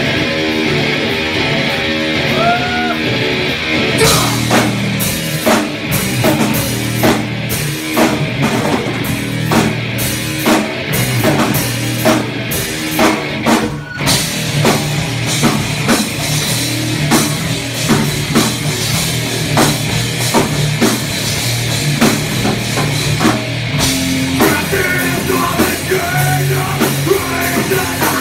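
Live rock band playing loudly: electric guitar alone at first, then the drum kit comes in about four seconds in and the full band plays on with steady, regular drum hits.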